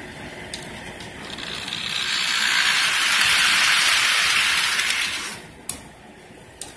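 Model train cars rolling along sectional track, with a rattling, whirring wheel noise that swells as they pass close by and dies away quickly a little after five seconds in. Two sharp clicks follow.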